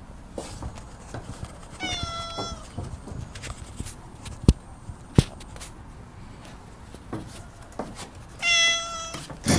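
A domestic cat meowing twice, once about two seconds in and again near the end, each a short call held at a steady pitch that drops slightly at the end. Two sharp clicks fall in between, the loudest sounds here.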